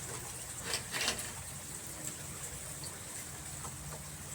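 Steady hiss of running water, with a few light taps about a second in.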